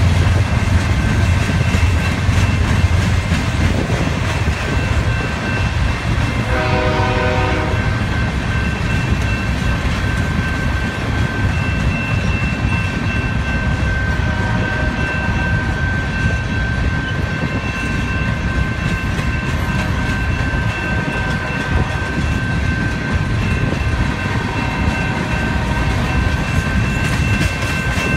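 Loaded coke hopper cars of a freight train rolling past with a steady low rumble and wheel clatter. About six and a half seconds in, the lead locomotive's K5HL horn sounds one short chord in the distance. From about eleven seconds on, a steady high squeal runs over the rumble.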